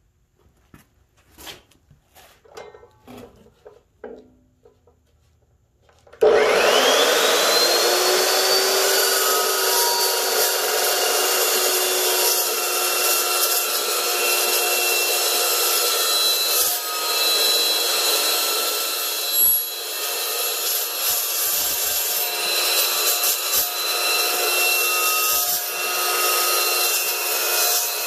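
A few seconds of small knocks and handling, then about six seconds in the Evolution S380CPS chop saw switches on with a rising whine as its motor spins up its 15-inch metal-cutting blade, and runs on steadily, loud, as the blade is pressed down through metal clamped in its vise.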